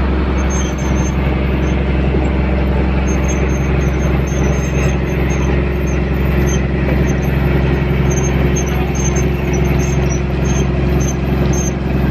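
Fishing boat's engine running steadily at a constant speed: an unbroken low drone.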